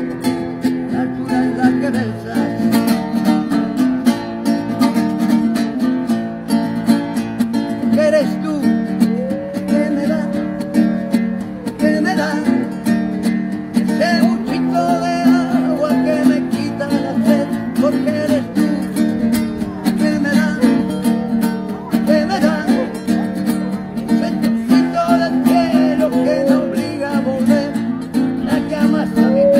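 Acoustic guitar strummed in a steady rhythm, with a man's voice singing a melody along with it at times.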